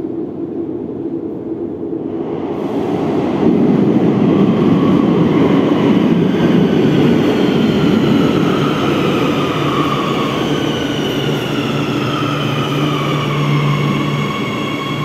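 Madrid Metro 8000-series electric train arriving at an underground platform: a rumble that grows louder as it runs in. Its traction motors' whine falls in pitch as it brakes, levelling off as the train nears a stop.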